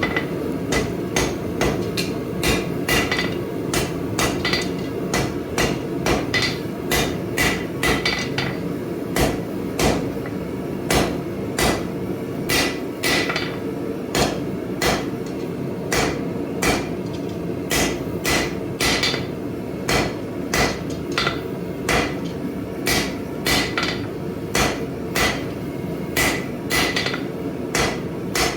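Hammer blows forging a taper on a 1-inch steel flat bar, struck about twice a second with a short metallic ring after many blows. A steady low rushing noise runs underneath.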